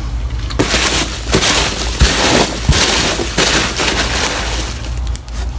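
A hand rummaging through a box of foam packing peanuts: dense, crackly rustling with a few sharper knocks, starting about half a second in and easing off near the end.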